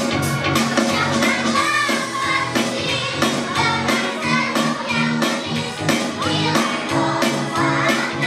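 A group of children singing together over a pop backing track with a steady beat.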